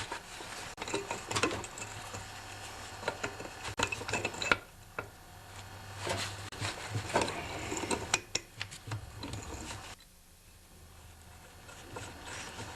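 Pipe wrench working the small back plates off a Tecumseh 10 hp engine: irregular metal clicks, knocks and scrapes as the jaws grip and turn. A low steady hum runs underneath and stops about ten seconds in.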